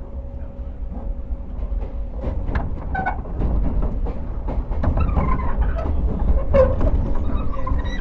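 Running sound heard inside a JR 115 series electric train's motor car: a steady low rumble with wheels clicking over rail joints. From about halfway, high squeals slide down in pitch.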